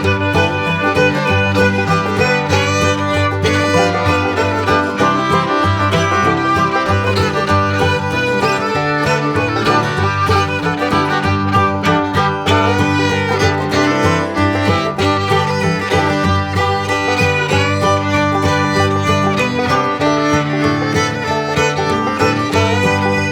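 Background music: an upbeat fiddle-led tune with banjo and guitar, country or bluegrass in style, with a steady beat.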